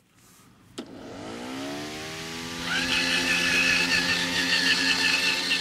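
A click, then a motor winding up to speed with a rising whine that levels off into a steady hum. A higher whine joins in a little under halfway through and the sound grows louder.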